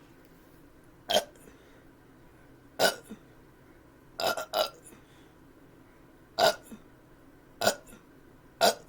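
A man's short, sharp burps, about seven in a row, one to two seconds apart, brought up after chugging a bottle of carbonated seltzer.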